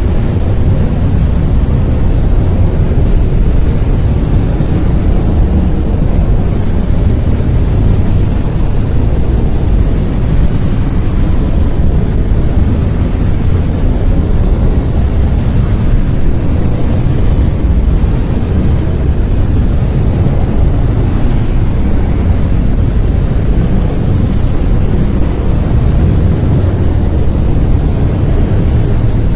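Steady brown noise: an even, deep rumbling hiss with most of its weight in the low end, unchanging throughout.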